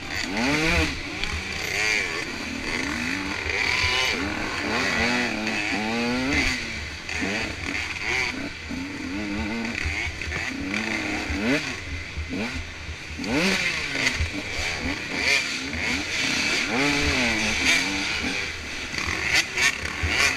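Motocross dirt bike engine revving up and falling back over and over as the rider works through the gears on the track. A few sharp knocks come near the end.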